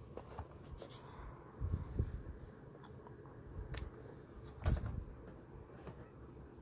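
Cardboard toy boxes being handled and set down on a wooden dresser: scattered light knocks and rustles, the loudest a thump a little before five seconds in.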